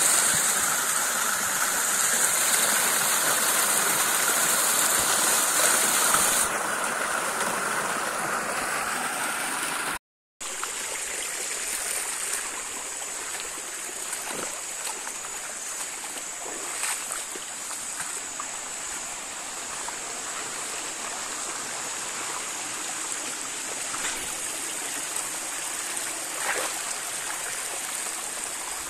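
Hill stream running, a steady rush of water. The sound cuts out completely for a moment about ten seconds in, then returns a little quieter.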